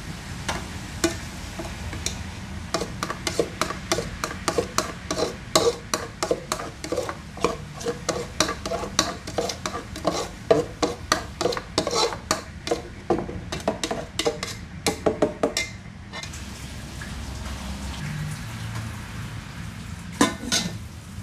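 Metal spoon stirring and scraping a thick sugary kaya mixture in an aluminium pot, with rapid clinks against the pot for about fifteen seconds. Near the end a metal lid clanks down onto the pot.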